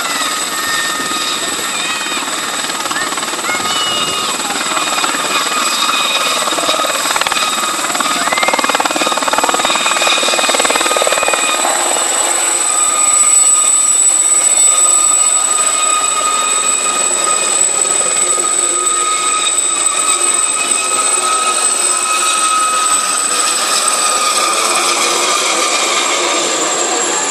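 A light turbine helicopter taking off and flying past, its high steady turbine whine over the rush of the rotors. It grows loudest about halfway through as it passes, then eases slightly as it climbs away.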